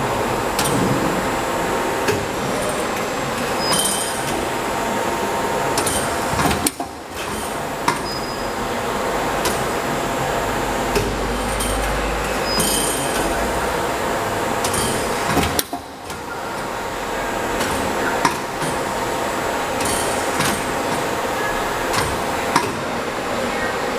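Automatic pipe hole-punching machine at work: a steady running hum broken by repeated sharp knocks of the punch and a few short hisses. The running sound drops out briefly twice.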